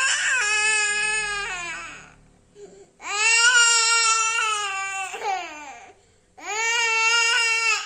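A small boy crying in long, high-pitched wails: three cries of about two seconds each, with short breaks for breath between them.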